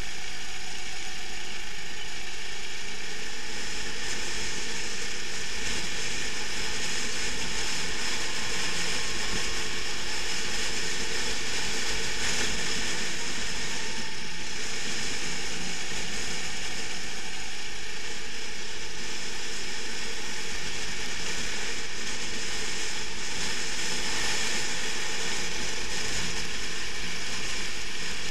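Onboard sound of a racing kart lapping at speed: its engine running continuously with mechanical clatter from the chassis, a steady, noisy din that hardly changes in level.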